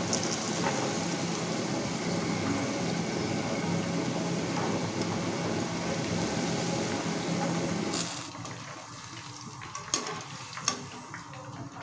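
Okra pieces frying in hot oil in a kadai, a steady sizzle while they are scooped out with a wire skimmer. About eight seconds in the sizzle drops to a faint bubbling as the pan is emptied, with a couple of sharp clicks near the end.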